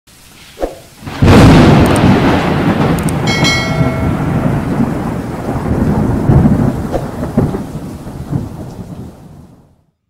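Thunder crash and rumble: a sudden loud crack about a second in that rolls on and slowly fades away over about eight seconds, with a brief ringing tone about three seconds in.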